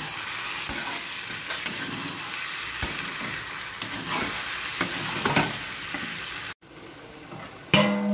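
Brinjal pieces sizzling in oil in a steel kadai while a spatula stirs and scrapes through them, with many short scraping strokes. Near the end the sizzling falls quieter and a single metal clang rings out.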